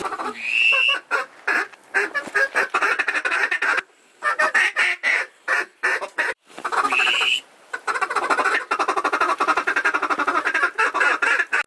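Duck call blown at circling ducks: long runs of rapid chattering quacks, with a short high note to open a run near the start and again past the middle, and brief breaks in between.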